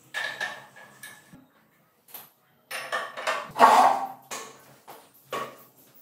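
Metal clattering and knocks as a homemade dirt bike is lifted off a wooden block stand and set down on its wheels, its frame and loose parts rattling. A few short rattles come first, and the loudest clatter comes just before the bike lands, with a last knock near the end.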